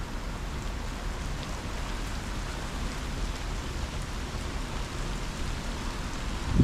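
Heavy rain falling steadily in strong wind, with a constant low rumble underneath.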